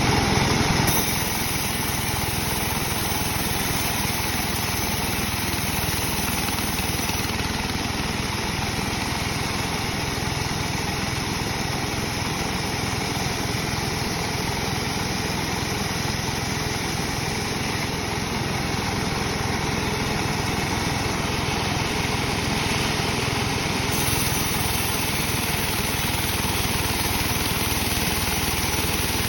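Sawmill machinery running steadily, with the even drone of the saw's drive motor. It is a little louder for the first second, then drops to a steady level.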